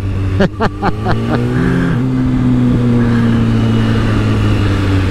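2004 Kawasaki ZX-10R's inline-four engine under way, revs rising a little over a second in, then holding and slowly easing down, over road and wind noise.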